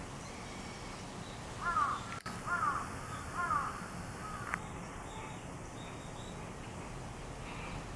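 A crow cawing three times in quick succession, each caw a short call that rises and falls in pitch, a little under a second apart.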